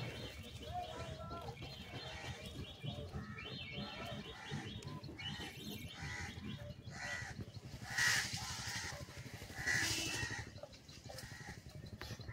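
Outdoor birdsong: chirping and trilling calls throughout, with two louder harsh calls about eight and ten seconds in.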